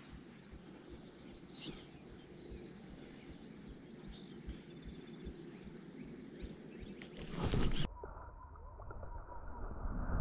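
Quiet pondside ambience: scattered bird chirps over a steady high-pitched insect trill. About seven seconds in comes a brief loud rush of noise, then the sound changes abruptly to a duller, rising rumble of movement.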